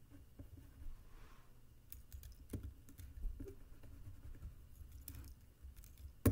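Pencil working on a sheet of paper on a wooden desk: a string of light, irregular taps and clicks, with one sharp knock near the end.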